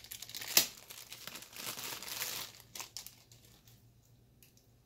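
Thin clear plastic bag crinkling as a data cable is pulled out of it, with one sharper crackle about half a second in. The crinkling dies away after about two and a half seconds, leaving only a few faint ticks from handling the cable.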